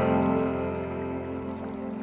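Relaxing background music: one sustained chord held and slowly fading.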